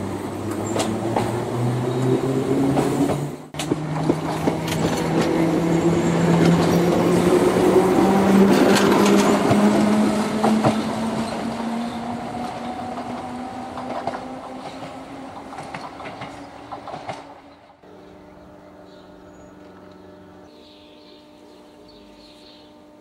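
Ex-London Underground 1938 tube-stock electric train (Island Line Class 483) pulling away: its traction motors whine, rising steadily in pitch as it gathers speed, over wheels clattering on the rail joints. The whine fades, and about eighteen seconds in the sound cuts to a quieter steady hum.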